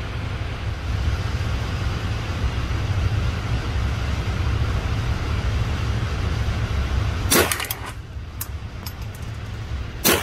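Two rifle shots, the first about seven seconds in and the second about three seconds later, each cutting through a steady low rumble; a few faint clicks come between them.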